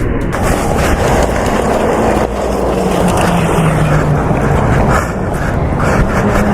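Motorcycle at freeway speed heard through a helmet camera: loud wind roar over the engine, whose note drops through the middle and climbs again near the end.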